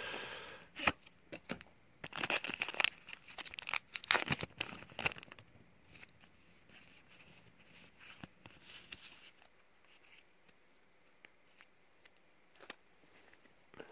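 A Pokémon TCG booster pack's foil wrapper being torn open and crinkled in bursts for the first five seconds or so. After that come faint clicks and rustles as the cards are slid out and thumbed through.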